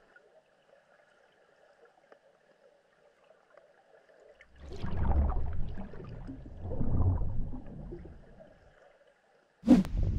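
Muffled water sound heard through a submerged camera: a faint steady hum at first, then a few seconds of low gurgling and sloshing. Near the end, wind buffeting the microphone starts abruptly.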